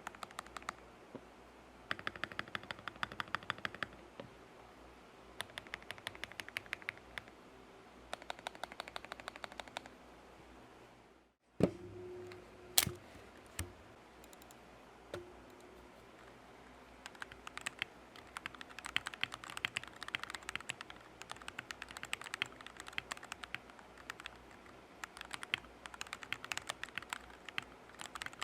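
Mechanical keyboard being typed on in short bursts of rapid key clicks. About eleven seconds in the sound breaks off, a few louder single knocks follow, and then steadier, denser typing resumes on what is likely another keyboard.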